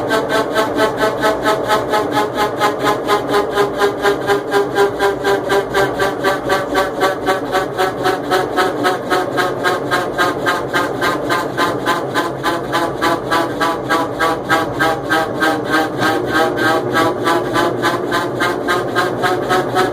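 GE top-load washing machine running with a loud, even knocking pulse of about four to five beats a second over a steady hum, the noise of a faulty machine that, despite several replaced parts, is thought unable to complete its spin cycle.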